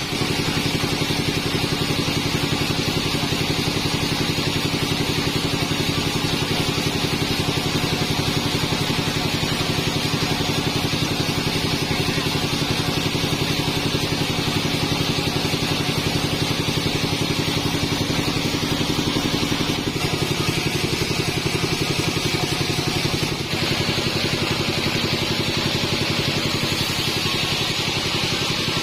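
Modified band sawmill running steadily: a constant machine drone with a higher hiss over it. The tone shifts slightly about two-thirds of the way through, and the level dips briefly a few seconds later.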